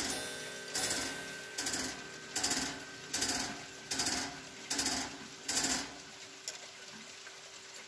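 Grande sonnerie striking of a three-weight Vienna regulator clock: seven even blows on its gong about 0.8 s apart, each with a short burst of mechanical whirr from the strike train. The count and the hands at about a quarter to eight fit the hour strikes following the quarters. The gong's tone hangs on between blows.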